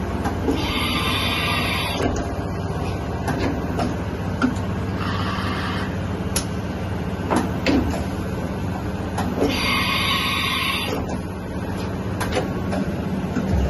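Kasuga Q-600G CNC vertical machining centre running with a steady hum, scattered clunks and clicks, and three hissing bursts about a second or so long.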